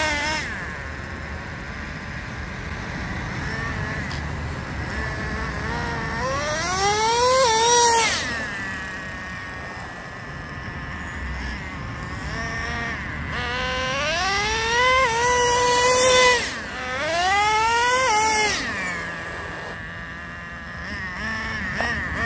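Traxxas TRX 3.3 two-stroke nitro engine in an RC truck, revving up in three rising runs, about seven, fifteen and eighteen seconds in, each cut off sharply, with lower running between them. The engine is broken in and tuned.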